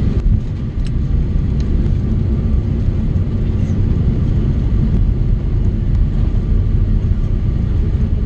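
Cabin noise inside an Airbus A330-200 rolling on the ground: a steady low rumble of engines and wheels, with a faint steady whine above it.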